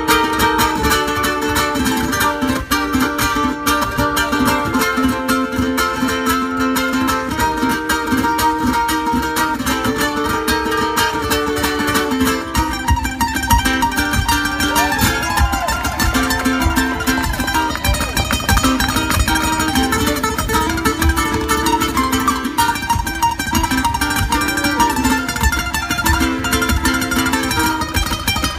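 Two ukuleles playing an instrumental tune together, quick picked notes over steady rhythmic strumming, with no singing.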